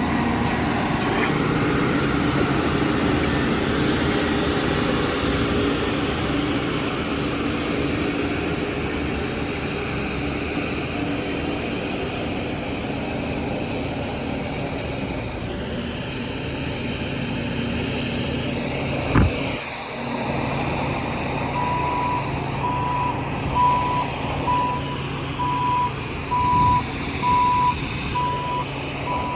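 Diesel engine of a heavy earthmoving machine running steadily. There is a sharp knock about two-thirds of the way in, and then a backup alarm begins beeping at an even rate of roughly one beep a second as the machine reverses.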